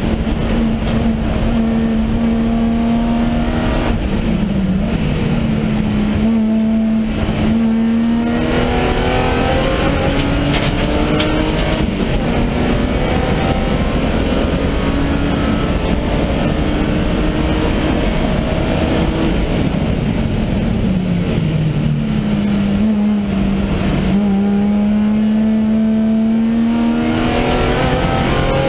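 BMW E36 325i Group N race car's 2.5-litre straight-six under hard driving, heard from inside the cabin over road and wind noise. The engine note drops as the car slows for corners, about four seconds in and again near the twenty-second mark, then climbs again as it accelerates, rising hard near the end.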